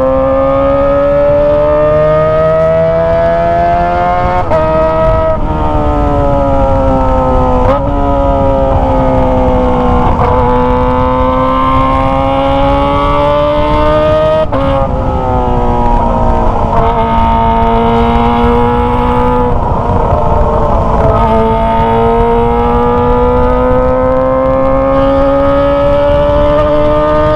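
Kawasaki ZX25R 250 cc inline-four engine through a Toce aftermarket exhaust, revving high under way. Its pitch climbs slowly, then drops sharply at gear changes several times, easing down now and then before climbing again.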